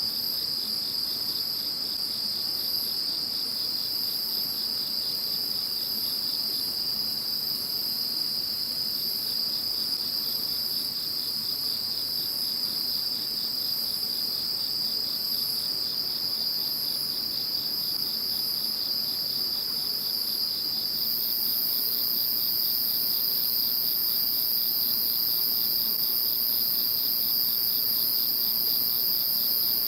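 Chorus of several calling insects: a steady high trill runs throughout, with rapid pulsed chirping above it. About two-thirds of the way through, a still higher continuous buzz joins in and the chorus gets slightly louder.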